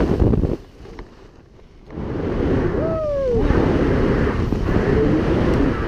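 Heavy wind buffeting the camera microphone during a tandem skydive as the parachute deploys. The rushing drops away sharply for about a second and a half, then comes back. About three seconds in there is one short whooping shout that rises then falls.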